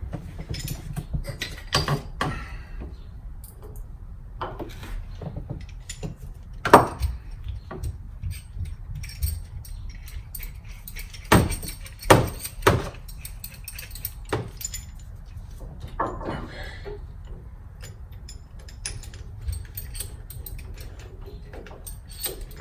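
Scattered metallic clinks and knocks of hand tools and brake parts being handled during a rear brake pad job, with a few sharper knocks about 7 s and 11 to 13 s in, over a steady low rumble.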